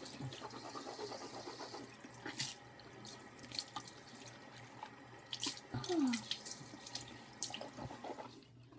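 Bathroom sink tap running, loudest in the first two seconds, with a few small knocks and clicks of things handled at the sink.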